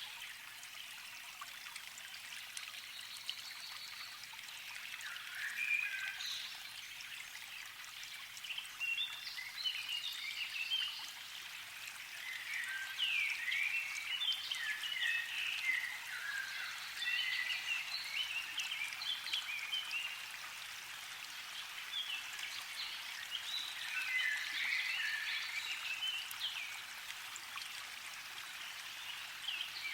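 Many birds chirping together in dense, overlapping short calls that come in waves, over a steady background hiss.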